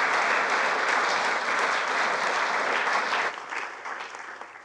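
Audience applauding, dense clapping that thins out about three seconds in and fades away near the end.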